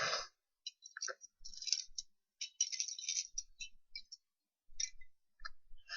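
Plastic Lego pieces clicking and rattling as they are handled and picked through, in a run of short, irregular clicks.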